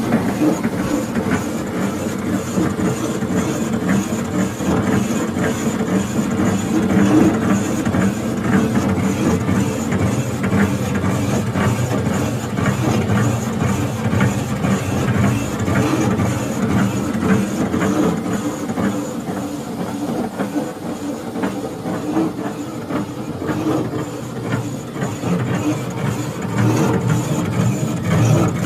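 Machinery with an engine running steadily, overlaid with a dense mechanical clatter and rattle.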